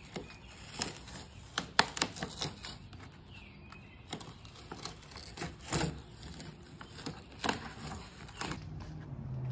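Masking tape and masking paper being peeled off a painted car hood by hand: an irregular run of sharp crackles and tearing sounds.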